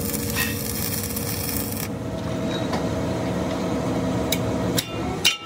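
Electric arc welding on a steel wheel rim, a dense crackling hiss for about the first two seconds. It then gives way to a steady machine hum from the lathe, with a few sharp metal knocks near the end as the rim is struck with a hammer.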